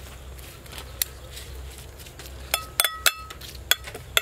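Metal spoon and fork clinking against a ceramic plate while tossing a salad: one clink about a second in, then a quick run of clinks in the second half, each with a short ring.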